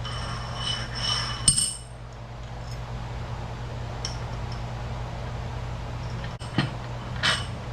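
Metal parts clinking and knocking as they are handled, with short ringing clinks at first, a sharp knock about a second and a half in, and two more knocks near the end. A steady low hum runs underneath.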